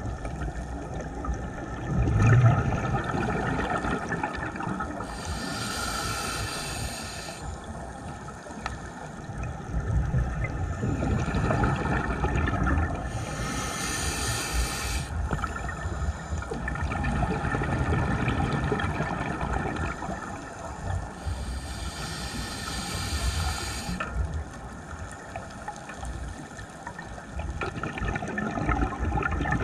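Scuba regulator breathing: three hissing inhalations of about two seconds each, roughly eight seconds apart, each followed by the low bubbling gurgle of exhaled air.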